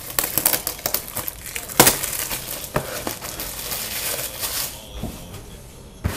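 Plastic wrapping being torn and crumpled by hand: a dense run of crinkles and crackles that dies down about five seconds in.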